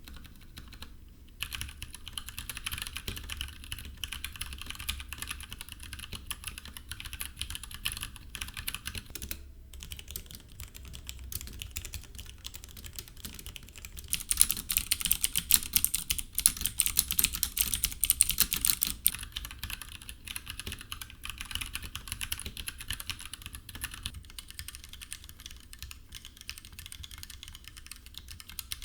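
Typing on an Anne Pro 2 mechanical keyboard with Gateron Brown tactile switches: a steady run of rapid keystrokes, louder and busier for a few seconds in the middle.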